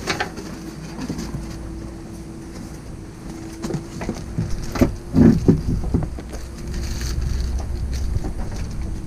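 Cardboard rustling and a few knocks and clunks as a heavy watermaker high-pressure pump is pulled from its box and set on a table, the loudest knocks about five seconds in. Wind rumbles on the microphone and a steady low hum runs underneath.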